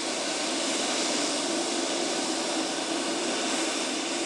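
Boeing 747 cargo jet's four turbofan engines running as it taxis: a loud, steady rush with a faint low hum underneath.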